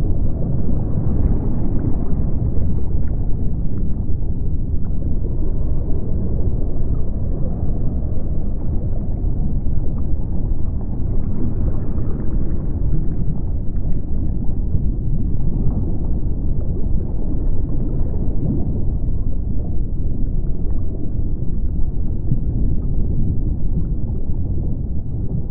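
Underwater ambient noise picked up by a camera in an underwater housing: a steady, loud, low rumbling wash of water that swells a little every few seconds.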